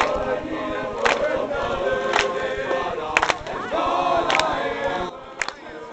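A group of young men singing together in chorus, with a sharp percussive hit marking the beat about once a second.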